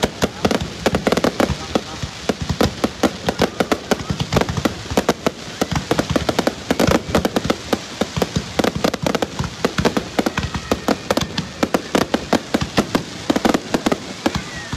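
Fireworks display: a continuous rapid string of bangs and crackles from aerial shells and comets bursting, many per second with no pause.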